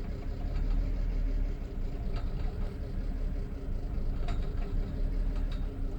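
BMW car engine idling steadily after a rev, with a few faint ticks on top. This is the strange noise that comes with a cold-engine problem.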